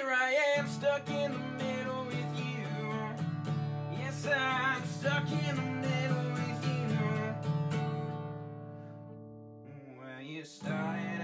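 A male voice singing over a strummed acoustic guitar. The singing and chords fade away around nine seconds in, and strumming starts up again loudly shortly before the end.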